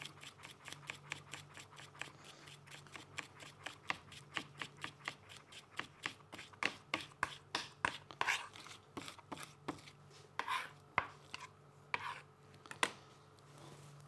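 Chef's knife mincing garlic on a cutting board: quick, even chops about five a second at first. Later the strikes become slower, irregular and louder, and they stop about a second before the end.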